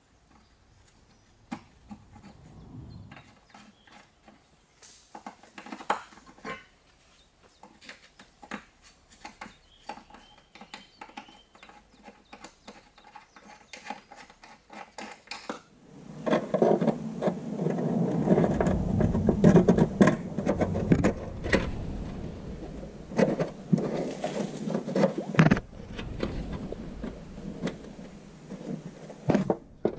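Scattered small clicks, taps and scrapes of a gloved hand handling parts on a car's metal underbody. About halfway the sound becomes louder and more continuous, with rubbing and knocking.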